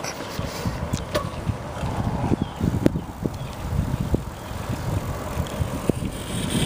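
A bicycle rolling over cracked asphalt, rattling, with a few sharp clicks and knocks from the bike, under a steady rumble of wind on the microphone.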